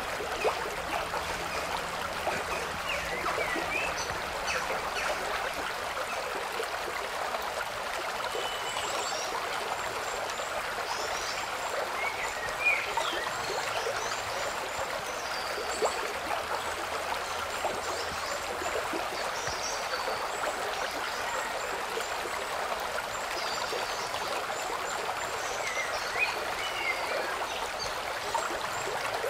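Steady sound of running water, like a stream, with scattered short high chirps over it.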